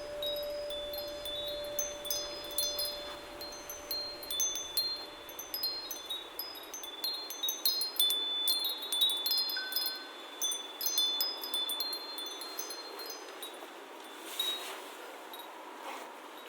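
Wind chimes ringing irregularly: clusters of high, clear metal tones struck at random, busiest in the middle and thinning out near the end. A lower held tone dies away in the first few seconds.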